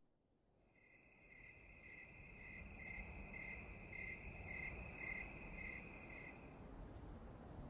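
Crickets chirping at night: one steady high trill and another chirping about twice a second, fading in from silence over a low rumble, with the chirping stopping about six and a half seconds in.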